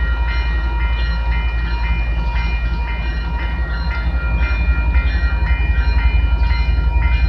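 Level-crossing warning bell ringing in quick, evenly repeated dings as the crossing gates come down, over a steady low rumble.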